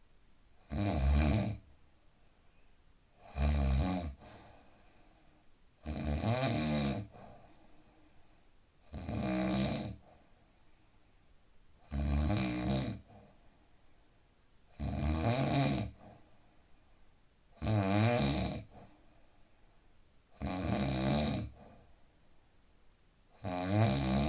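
A man snoring in deep sleep, with regular snores about every three seconds. Each snore lasts about a second, and the breathing between them is quiet.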